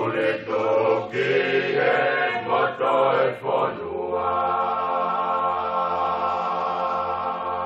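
Voices singing a Tongan song in harmony, then settling on a long final chord held from about four seconds in.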